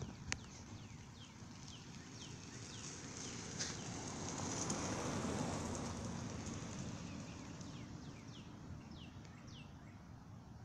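Birds chirping in short, quickly falling calls, several in a row near the start and again near the end, while the sound of a passing vehicle swells up and fades away around the middle.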